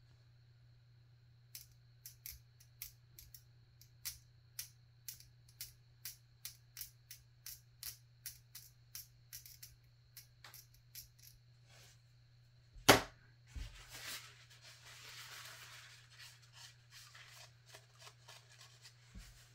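Short regular scraping strokes, about two a second, of primer being scraped off a small plastic model figure's collar, then one sharp click about two-thirds through and a few seconds of softer rubbing.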